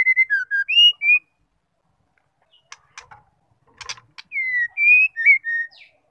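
White-rumped shama singing two short phrases of clear, sliding whistled notes, with a few sharp clicks in the pause between them.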